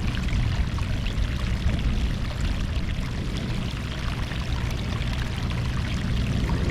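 Sea water washing steadily against the shore, with fine crackling trickles and a low rumble underneath.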